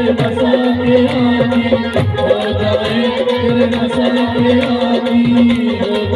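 Live amplified folk song: a man sings over a dholak, a hand-played barrel drum, beating a quick rhythm. A steady held note sounds underneath, and there is hand clapping.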